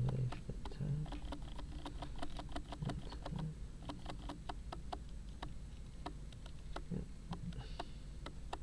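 Camera autofocus clicking: a continuous, uneven run of small sharp clicks, several a second, as the lens struggles to focus. A steady low hum lies underneath.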